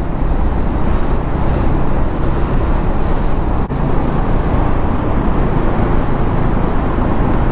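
Motorcycle on the move: the Bajaj Dominar 400's single-cylinder engine running steadily under loud, constant wind and road rush.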